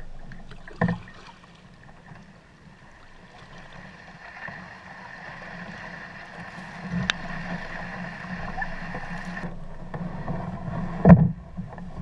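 Kayak paddle strokes swishing through the water, with knocks on the kayak hull: a short knock about a second in and a louder thump near the end.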